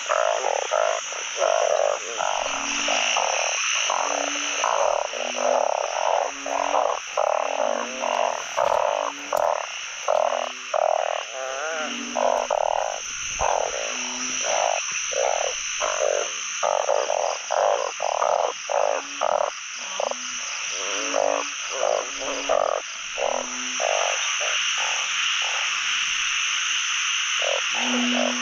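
Dense chorus of oung, narrow-mouthed frogs (Microhylidae), and other frogs calling together. Short croaks overlap and repeat about once or twice a second over a steady high-pitched hum.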